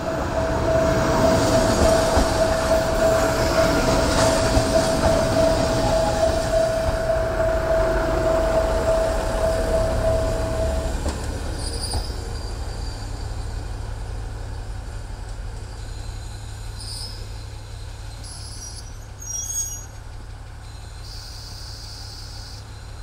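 KiHa 40-series diesel railcar pulling in and braking to a stop, with a steady high-pitched squeal over the rumble of the wheels. The squeal stops about halfway through. After that the diesel engine idles with a low, steady hum.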